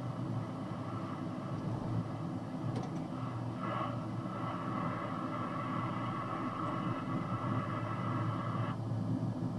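Steady low engine and road rumble inside a box truck's cab. A click comes about three seconds in, and soon after a steady higher-pitched hiss starts and then cuts off abruptly near the end.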